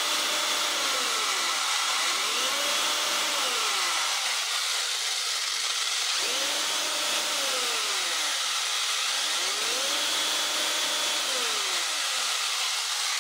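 RC car's brushless inrunner electric motor and drivetrain spinning the wheels at high speed off the ground, a loud steady whir. A pitched tone in it rises and falls four times.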